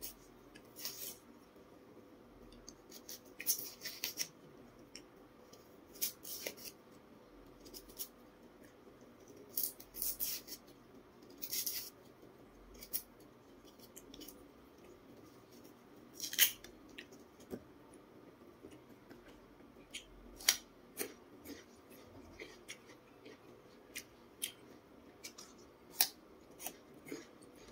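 A knife peeling a raw jicama: irregular short scrapes and snips as the blade cuts under and strips off the skin. Near the end comes a crisp bite into the raw jicama.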